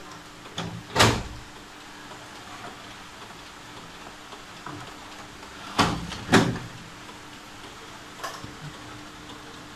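Paper cassette drawers of a Canon imageRUNNER 3030 photocopier being pulled out and pushed shut: a sharp knock about a second in as a drawer is released and opened, then two loud knocks around six seconds in as a drawer is slid home and latches, with a smaller knock later.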